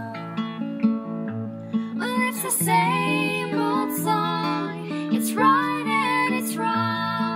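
Background music: acoustic guitar picking, with a wavering melody line coming in about two seconds in.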